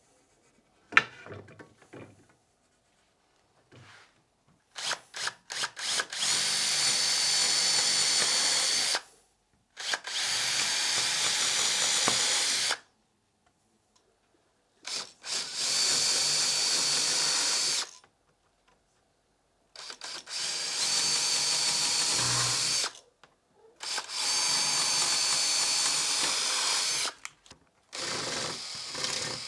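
Power drill boring screw holes, run in six separate bursts of about three seconds each with brief trigger blips before some of them, a steady motor whine through each run.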